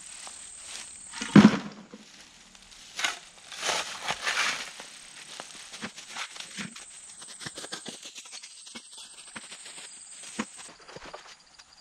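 Footsteps crunching over rough, rocky ground, with irregular knocks and rattles from carried buckets and a shovel; a louder thump about a second and a half in, then lighter scattered ticks.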